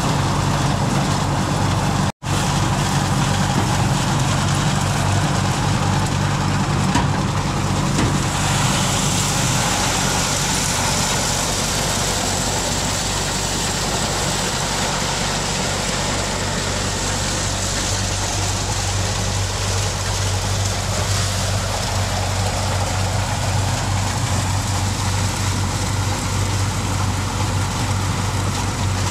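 An engine running steadily. Its hum drops out for an instant about two seconds in. About eight seconds in its note changes and a broad hiss comes up alongside it.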